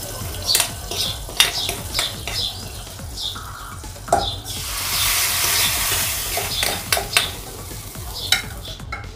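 A metal spoon scrapes and knocks against a steel kadai as hot tempering oil is emptied into dal. A loud sizzle starts about four seconds in and lasts two seconds or so as the hot oil hits the dal, and clinks of the dal being stirred follow near the end.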